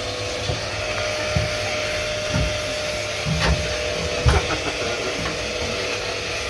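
K9000 self-service dog wash spraying water from its hand-held shower nozzle, with the machine's pump running: a steady hiss with a faint steady whine, and a few soft knocks in the steel tub.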